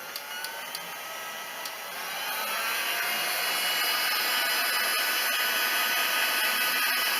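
Heat gun running: its fan speeds up with a rising whine over the first two or three seconds, then blows steadily with a loud airy hiss. A few light clicks sound in the first couple of seconds.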